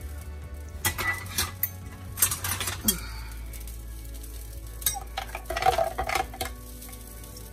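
Metal cutlery clinking, then a metal spoon stirring a thick milky drink in a glass pitcher, clinking against the glass. A few sharp clinks come in the first few seconds and a ringing run of clinks comes about five to six seconds in.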